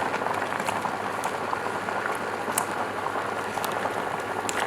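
Hotpot broth bubbling at a steady boil, with a few light clicks scattered through.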